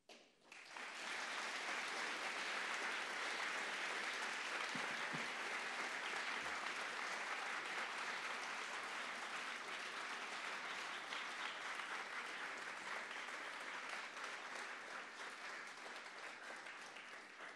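Audience applauding: dense, even clapping that builds within the first second, holds steady, then slowly thins out near the end.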